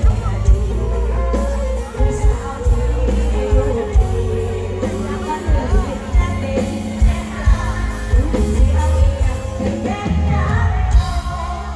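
A Thai Isan luk thung song performed live: a woman singing into a headset microphone over an amplified band with heavy bass.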